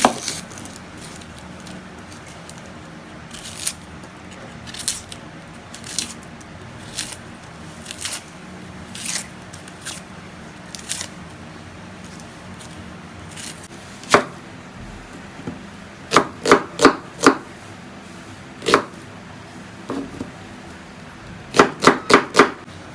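Kitchen knife cutting an onion on a chopping board: light cuts about once a second, then louder quick runs of four chops about two-thirds of the way through and again near the end.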